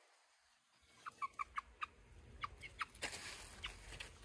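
Domestic fowl calling: a quick run of short, clipped notes starting about a second in, then a few scattered ones, faint.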